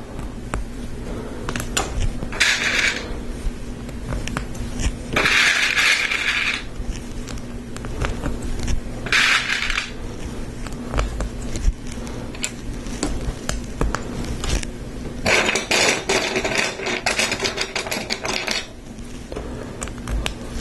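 Hard plastic Lego Technic parts clicking and rattling as pins and panels are handled and pressed together. Scattered clicks run throughout, broken by four longer spells of clattering or scraping, the longest lasting about three seconds near the end.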